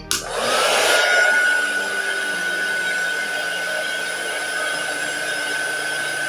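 Mini heat gun switched on with a click; its small fan motor spins up with a rising whine that settles into a steady high whine over the rush of blown air.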